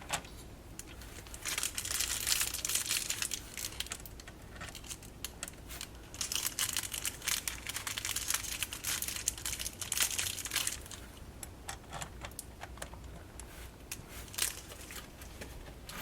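Plastic packaging crinkling in two long stretches, about a second and six seconds in, with scattered small clicks and taps of cooler mounting parts being handled.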